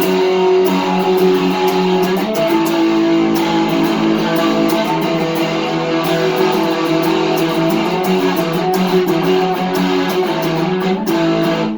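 Electric guitar fitted with GFS Lil' Killers humbucker pickups, played as a continuous run of picked and strummed chords that stops at the very end. It is a tone test of the pickups' coil-split settings.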